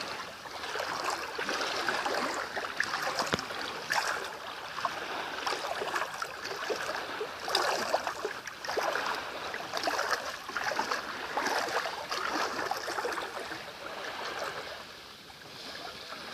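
Small sea waves lapping and splashing at the water's edge, swelling in irregular surges every second or so.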